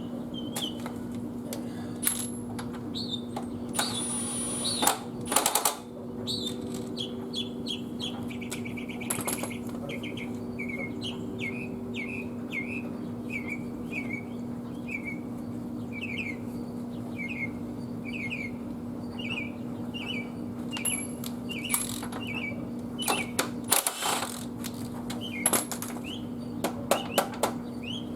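A bird chirping over and over, about one and a half short chirps a second. Under it runs a steady low hum. Scattered sharp clicks and knocks come a few seconds in and again near the end.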